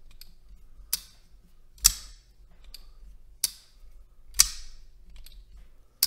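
Quiet Carry 9 titanium folding knife being flicked open and snapped shut, its blade locking and closing with four sharp clicks about a second apart and a few fainter ticks between them.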